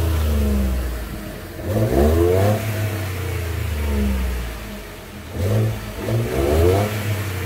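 Ford pickup truck's engine heard close at the exhaust tailpipe, idling and revved in blips: one rev about two seconds in, then two quick revs near the end, dropping back to idle between them.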